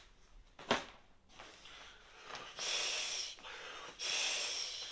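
A man blowing into the valve of a Trekology UL80 inflatable sleeping mat by mouth: two long breaths of air, about a second each, in the second half. A single click about a second in comes before them.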